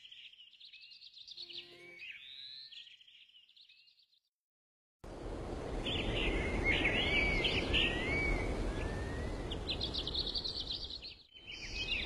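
Birds chirping and singing in a short repeating phrase. After a brief silence about five seconds in, more birdsong comes over a steady rushing background noise.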